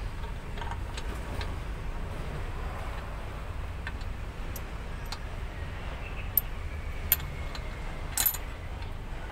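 Small metal clicks and a short rattle as a nut and washer are handled and threaded onto a bolt on a truck's brake chamber. The loudest click comes a little after six seconds, another around seven, and a brief rattle just after eight, over a steady low rumble.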